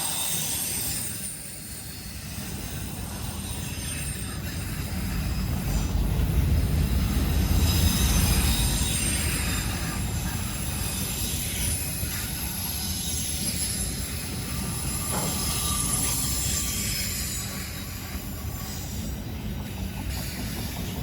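CSX freight train rolling past, the rumble of its cars on the rails joined by high, thin wheel squeal. The rumble swells about six to nine seconds in.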